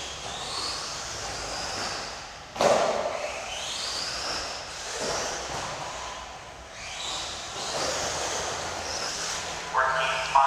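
Electric motor of a 1/10 two-wheel drive mod RC buggy whining up and down in pitch as it is throttled on and off around the track, with a sharp thud about two and a half seconds in.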